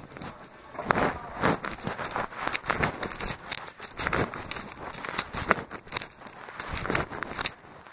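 Irregular rustling, crinkling and knocking: handling noise rubbing against a covered camera microphone.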